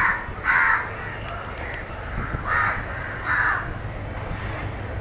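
A crow cawing: two pairs of harsh caws about two seconds apart, over a low steady rumble.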